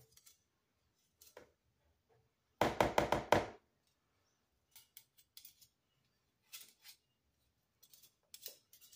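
Metal wire whisk and spoon knocking and clinking against each other and a plastic mixing bowl as thick dough is stirred and scraped off the whisk. There is a quick run of about six knocks about three seconds in, with scattered light clicks before and after.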